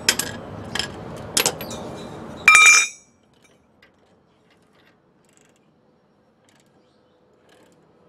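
Chrome steel sockets and an extension clinking against each other and the concrete floor as they are fitted onto a ball joint press screw: a few sharp clicks, then a louder ringing clink about two and a half seconds in. After that, the sound drops suddenly to near silence.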